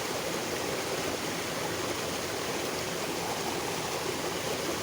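Water of a small stream flowing steadily: an even, unbroken rush of running water.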